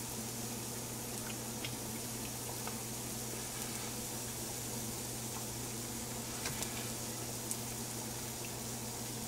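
Veggie chicken strips sizzling softly in a frying pan: a steady hiss with a few small pops, over a low steady hum.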